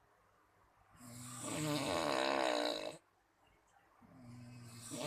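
Snoring: two long snores, each swelling over about two seconds, with a quiet pause between; the second starts about four seconds in.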